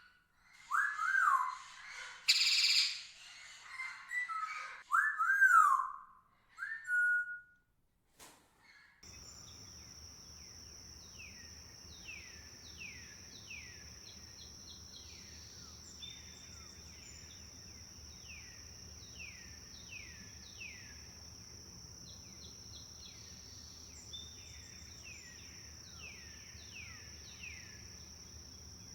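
Wild birds calling: loud whistled notes that rise and fall, with a harsher burst among them. About nine seconds in, the scene changes to a quieter chorus of repeated down-slurred whistles over a steady high-pitched hum.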